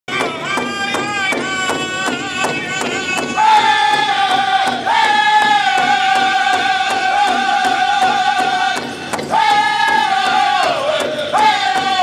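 Powwow drum group performing a contest song: several men singing high-pitched held lines together over a steady beat on a large shared powwow drum, about two and a half beats a second.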